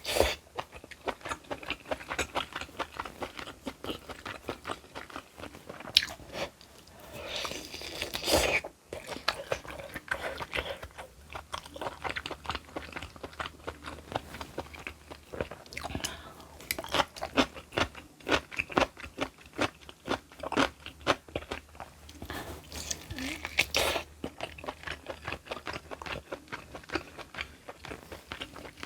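A person chewing close to the microphone, with rapid crisp crunches as they bite into crunchy food, and two longer noisier stretches about a quarter of the way in and again near the end.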